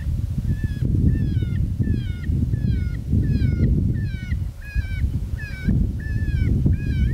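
Electronic predator call playing a high, falling distress cry over and over, about twice a second, with wind buffeting the microphone.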